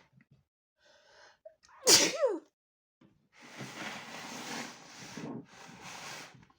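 A person sneezes once, loud and sudden, about two seconds in: a short pitched catch of breath, then the explosive burst with a falling voiced tail. Two longer stretches of hiss follow.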